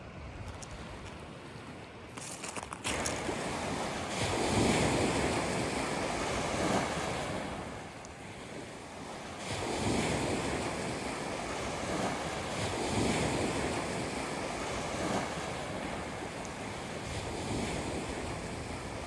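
Waves breaking and washing onto the shore, the surf swelling and easing in surges every few seconds, with wind buffeting the microphone.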